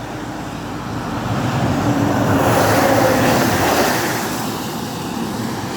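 A heavy truck passing over a road bridge: a rushing rumble of tyres and engine that swells to its loudest about three seconds in, then fades. Steady rushing water from the river in flood lies underneath.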